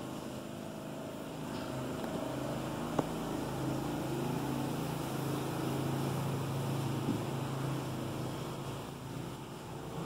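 A distant engine drone that grows louder from about a second in, holds steady, and dips near the end, with a sharp click about three seconds in.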